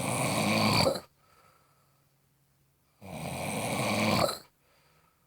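Snoring: two loud snores, the first ending about a second in, the second lasting about a second and a half from around three seconds in.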